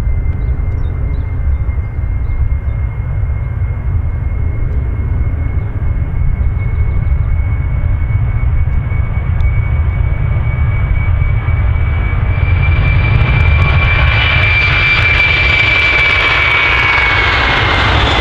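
Boeing 747 freighter's four jet engines at the start of the take-off roll: a steady deep rumble under a high screaming fan whine that creeps up in pitch. About two-thirds of the way in the sound grows louder and harsher with crackle, and near the end the whine drops in pitch as the jet passes.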